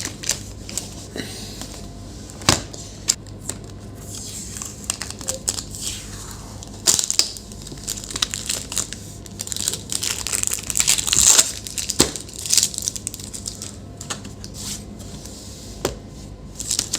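Hands working on a laptop's plastic case: scattered sharp clicks and knocks, with a longer stretch of scraping, rustling noise in the middle.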